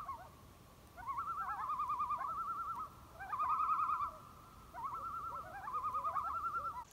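Common loon tremolo: a rapidly wavering, laughing call, given in three bouts with short pauses between.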